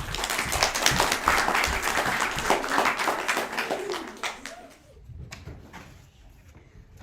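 Audience applauding, a dense patter of many hands that dies away after about four or five seconds.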